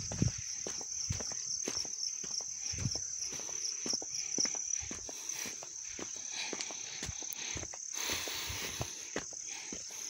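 Steady high-pitched drone of insects in the forest, with footsteps and small knocks on a dirt trail throughout.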